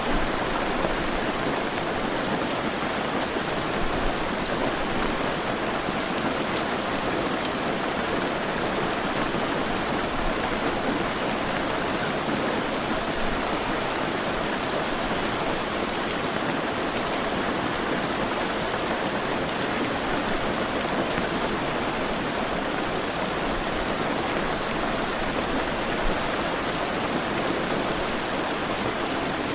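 Heavy rain falling steadily, a continuous even hiss of raindrops on surfaces.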